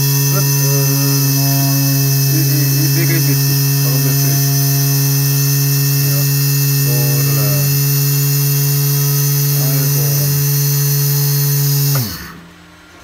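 Small electric motor spinning the wire to wrap the outer wire around the cores of a four-core alien clapton coil wire. It runs at a steady speed with a strong hum, then is switched off about twelve seconds in and winds down with a falling pitch.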